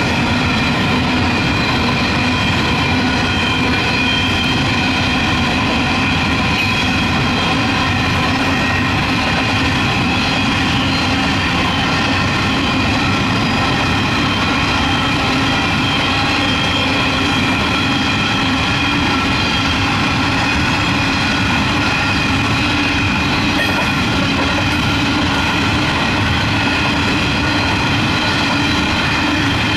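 Empty narrow-gauge diesel coal train rolling past at close range as it picks up speed, its wagons rattling and clacking over the rails. Under the rattle runs a steady hum that creeps slowly up in pitch.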